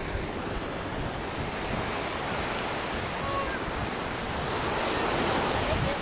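Small waves breaking and washing up a sandy beach: a steady surf wash that swells a little near the end.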